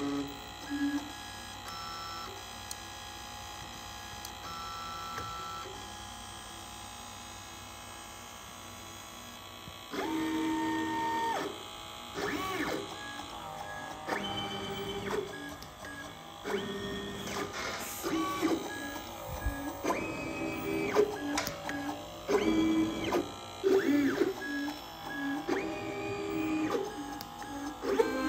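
Desktop SMT pick-and-place machine (Lightplacer) at work: its stepper motors whine in short moves, each tone rising, holding and dropping away, about once a second from about a third of the way in, after a quieter steady hum.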